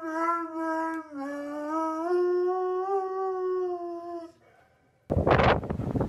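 A dog howling with its head raised: one long howl that breaks off about a second in, then a second long howl that steps up in pitch at about two seconds and fades out after about four seconds. Near the end, loud wind buffets the microphone.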